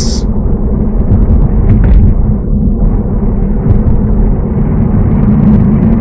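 Steady low road rumble of a car driving, heard from inside the cabin: tyre and engine noise, with a short high hiss right at the start.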